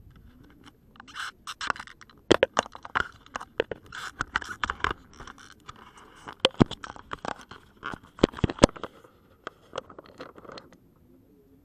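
Handling noise of a small action camera being moved and fixed in place: scraping and rubbing against its body, broken by many sharp knocks and clicks. The noise stops about a second before the end.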